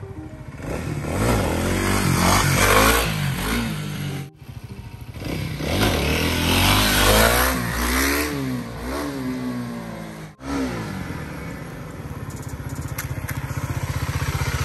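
Kawasaki KLX300 dual-sport motorcycle's single-cylinder four-stroke engine accelerating hard, its pitch climbing and dropping through the gears several times. It breaks off abruptly twice and settles to a steadier, lower run near the end.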